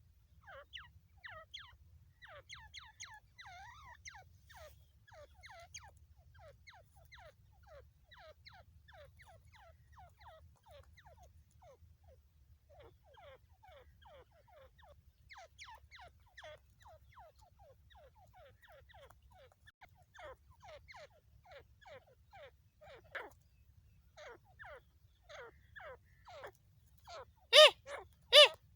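Female grey francolin (desi teetar) calling: a long run of faint, quick, downward-sliding notes, then two loud calls about a second apart near the end.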